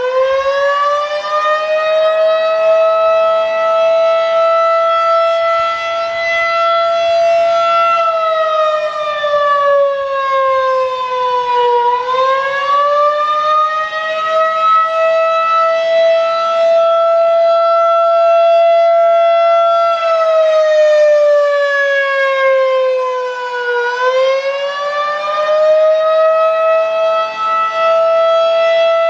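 Federal Signal 2001-DC electromechanical outdoor warning siren sounding a steady wail. Its single tone rises over a few seconds, holds level for about five seconds, then slides down over about four seconds, repeating roughly every twelve seconds.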